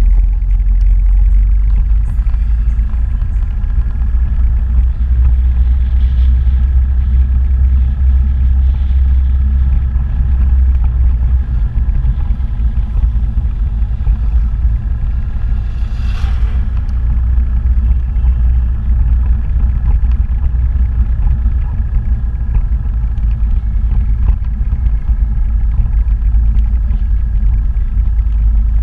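Motorbike riding along a road: a steady low rumble of the engine and wind buffeting the microphone, with one brief sharper noise about halfway through.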